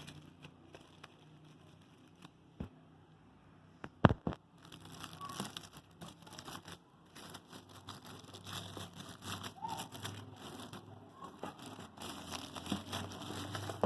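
Packaging paper and wrapping crinkling and rustling as a watch box is unwrapped by hand, going on from about five seconds in. A single sharp knock about four seconds in is the loudest sound.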